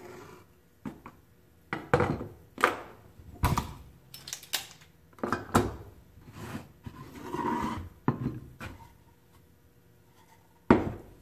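Hand tools and wooden boards being handled on a wooden workbench: a string of separate knocks and metal clinks as a combination square and other tools are set down and the boards moved, with a rubbing slide a little past the middle and a sharp wooden knock near the end.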